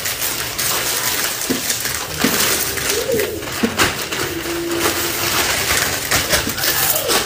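Plastic and paper packaging crinkling and rustling as small packets are handled and a packing bag is opened, with an uneven run of sharp crackles throughout.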